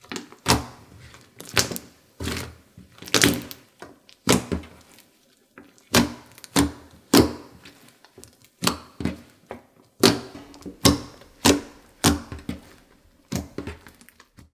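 Slime being pressed and folded by hand, giving a quick, irregular run of sharp sticky clicks and pops, about one or two a second.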